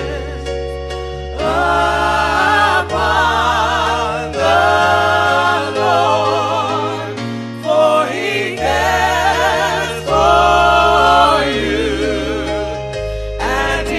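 Gospel song: several voices singing long phrases with vibrato, with short breaks between them, over held low bass notes.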